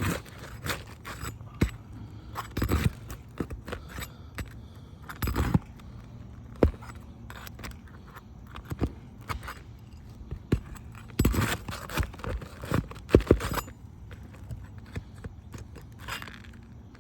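Metal snake tool (shingle ripper) working under asphalt roof shingles to cut out a roofing nail: irregular sharp metal taps and knocks from a hammer striking the tool, with scraping, thickest in a run of quick knocks a little past the middle.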